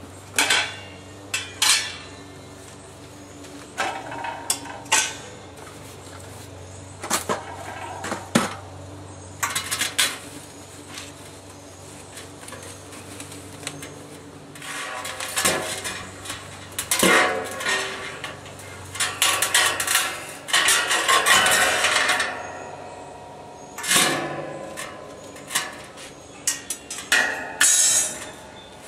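Loose metal smoker parts knocking and clanking against the inside of a steel barrel as they are handled and lifted out, in irregular clanks. Between about 15 and 23 seconds in there is a longer stretch of busier rattling and rustling.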